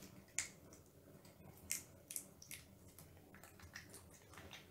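A cat eating a soft, near-liquid treat: a few faint, irregular mouth clicks of chewing.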